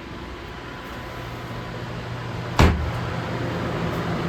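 A steady hum of fans and air handling, with one sharp knock about two and a half seconds in, typical of a door banging as it is opened or closed; the air noise grows a little louder after the knock.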